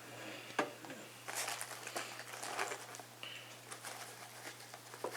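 Tools being handled in a fabric tool pouch: soft rustling with a few light clicks and knocks of small metal tools.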